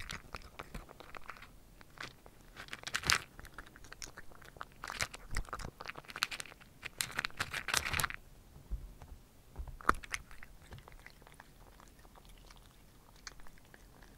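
Cat crunching and chewing dry kibble right at the microphone: bursts of crisp crunches for about eight seconds, then only a few scattered clicks as it stops eating.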